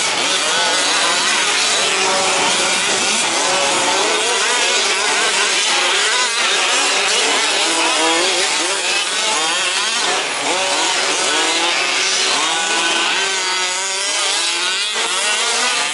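Several 1/5-scale two-stroke petrol RC truck engines racing together, their pitches rising and falling as they rev up and ease off through the corners.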